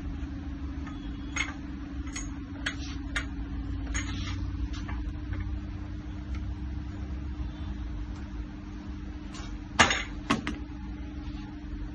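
Metal clicks and clinks from a JK Exer multi-station home gym's weight stack and low-pulley chain as the cable is worked, with two louder clanks of the stack near the end, over a steady hum.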